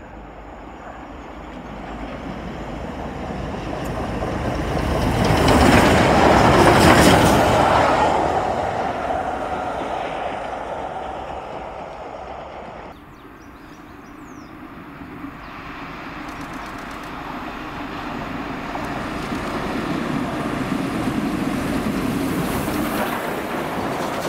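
Steam-hauled train passing at speed, its sound building to the loudest point about six to seven seconds in and then fading as it runs away. After a sudden drop about thirteen seconds in, a second steam locomotive grows steadily louder as it approaches and draws level.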